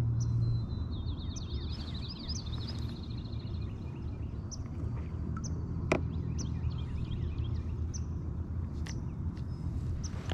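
Wild birds singing and calling, with a quick trill of repeated high notes in the first few seconds and short chirps scattered after it. A steady low rumble runs beneath, and a single sharp click comes about six seconds in.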